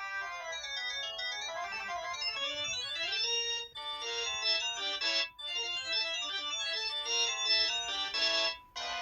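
Samsung SCH-X600 mobile phone playing one of its built-in ringtone melodies: quick runs of electronic, organ-like notes, broken by short gaps partway through and near the end.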